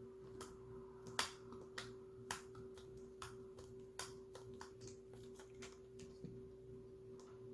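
Faint, irregular clicks and taps of plastic toy pieces being handled, over a steady hum. The sharpest click comes just over a second in.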